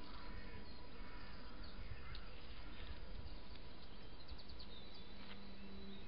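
Steady outdoor hiss from a wildlife trail camera's microphone, with faint, short bird chirps now and then. A quick run of chirps comes about four and a half seconds in, and there are one or two light clicks.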